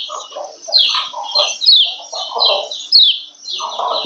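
Female yellow white-eye (kecial kuning) calling: a fast run of high, falling chirps, with lower, harsher chattering notes coming in bursts.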